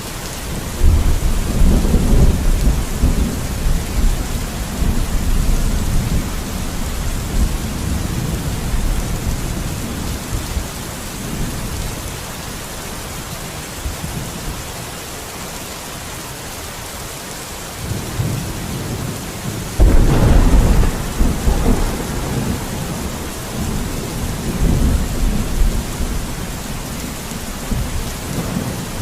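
Steady rain with two rolls of thunder: one rumbling in about a second in and dying away over ten seconds, and a second, sharper crack-and-rumble about two-thirds of the way through.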